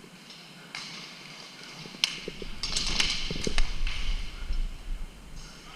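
Sharp clicks and clatter of an indoor airsoft game, with a louder stretch of clicks, hiss and low rumble from about two seconds in.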